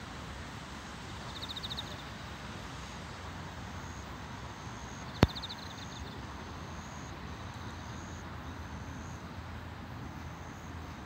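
Outdoor dusk ambience by the water: a steady low hum of distant city traffic with insects chirping in short high-pitched runs. A single sharp click about five seconds in is the loudest sound.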